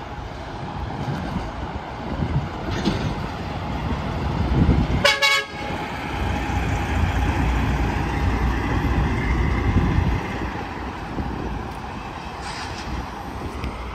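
Heavy highway traffic with big trucks passing. About five seconds in, a semi-truck's air horn gives one short blast.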